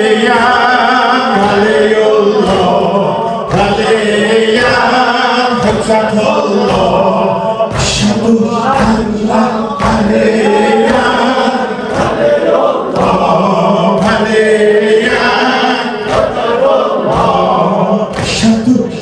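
Group of male voices chanting a mourning lament together in unison, over a regular low beat.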